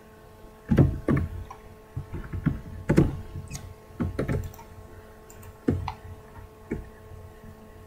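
Computer keyboard keys and mouse buttons clicked irregularly as shortcuts are entered, about a dozen taps spread unevenly, over a faint steady electrical hum.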